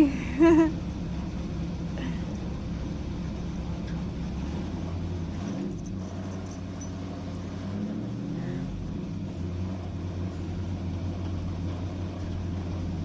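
Pickup truck engine running at a steady road cruise, a low drone heard from inside the cab. It eases off a few seconds in and picks back up near the end.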